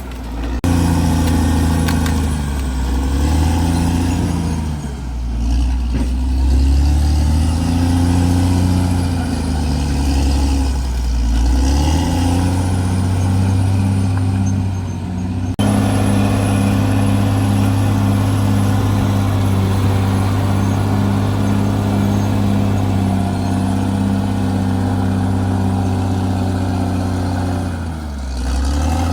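CAT D6R XL bulldozer's diesel engine working under changing load, its pitch rising and falling again and again, then holding steady at high revs in the second half. A faint high whine rises and falls with it.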